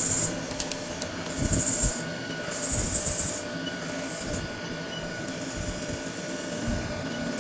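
CNC milling machine cutting a plate: a steady running tone with on-off bursts of high-pitched cutting squeal, strongest about one and a half to three and a half seconds in.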